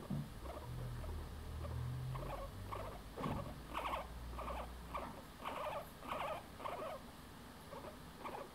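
A grooming comb drawn through a guinea pig's fur in repeated short strokes, about two a second. Under the first half runs a low steady rumble from the guinea pig, its contented purr.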